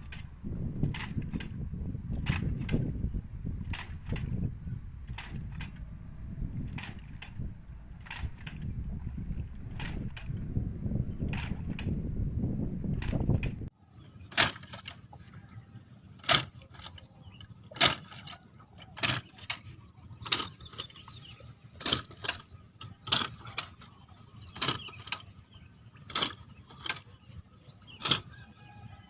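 Hand-operated traditional rice transplanter clicking as it is worked, sharp mechanical clicks at roughly one to two a second. A low rumbling noise runs under the clicks for the first half and stops suddenly about halfway through.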